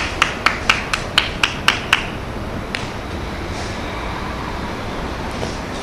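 A quick, even run of sharp claps, about four a second, stopping about two seconds in, over steady low background rumble.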